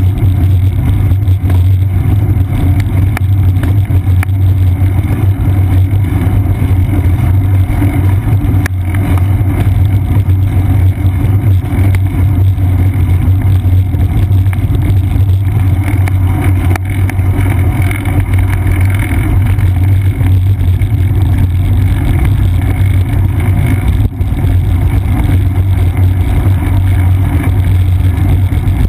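Steady low rumble of wind and road vibration picked up by a seat-post-mounted GoPro Hero 2 on a moving bicycle, its tyres running over an asphalt path.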